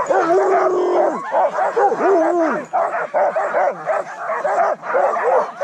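Many sled dogs yipping, whining and barking at once, a dense chorus of short rising-and-falling yelps. One dog holds a longer, steady whine near the start.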